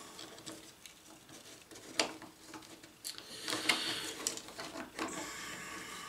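A micro servo being pushed and worked into its slot in a 3D-printed plastic robot body: plastic rubbing and scraping with a few sharp clicks, the sharpest about two seconds in and more around three to four seconds in.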